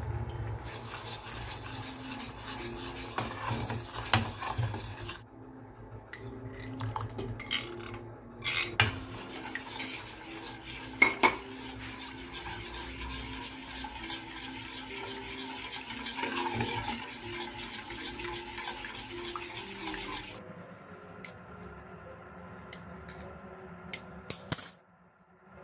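Utensil stirring and clinking against a bowl, with scattered sharp clicks. The sound changes abruptly a few times.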